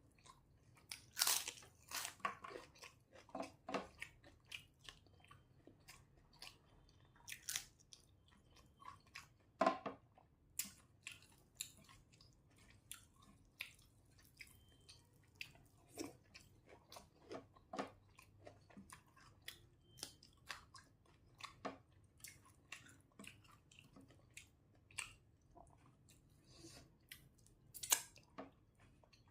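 A person eating a rice meal at close range: irregular chewing and mouth clicks with occasional crunchy bites, loudest about a second in and again about ten seconds in.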